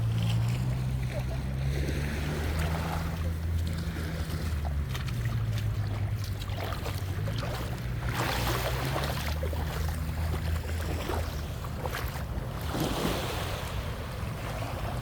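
Small waves washing onto the shore, with a steady low motor hum underneath that fades out about ten seconds in.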